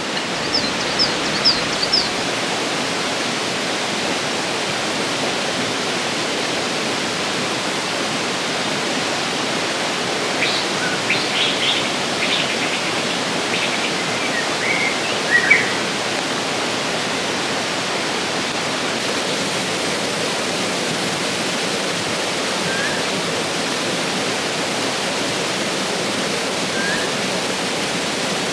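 River water rushing steadily. Birds chirp in short runs near the start and again about halfway through, with two brief single calls later.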